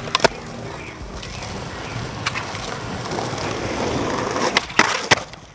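Skateboard wheels rolling over smooth paving, growing louder over the first few seconds, with a few sharp clacks of the board. The loudest clacks come close together near the end.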